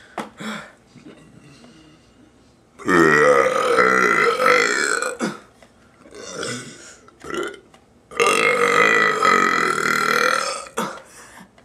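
A man burping on purpose: two long, loud belches of about two and a half seconds each, several seconds apart, with a few short, softer sounds in between.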